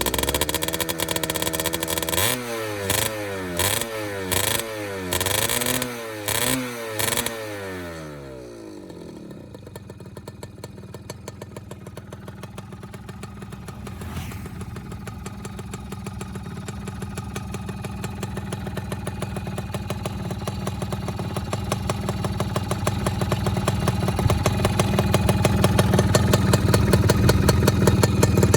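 Modified Yamaha F1ZR two-stroke motorcycle engine revved in a quick series of throttle blips, then dropping back to idle. The idle grows steadily louder over the rest.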